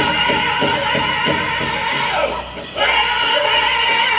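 Powwow drum group singing over a steady drumbeat of about three strokes a second. The drumming stops about two seconds in, there is a brief lull, and the voices come back in without the drum.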